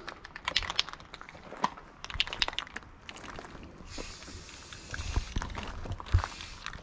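Aerosol spray paint can: a run of small rattling clicks at first, then a spraying hiss starting about four seconds in and a second short burst near the end, as paint goes onto bare metal.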